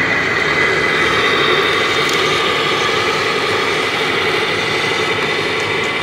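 Steady engine sound from a radio-controlled Mercedes Actros tipper truck, held at an even idle with no revving.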